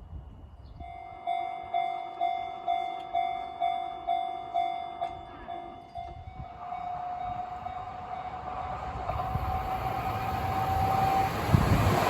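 A Japanese level crossing's warning bell starts up about a second in and rings about twice a second. Under it the rumble of an approaching Kintetsu train grows steadily louder toward the end.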